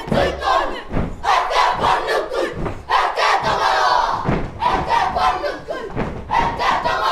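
A children's kapa haka group performing a haka: many voices shouting the chant in unison in short, forceful phrases, with thuds from stamping between them.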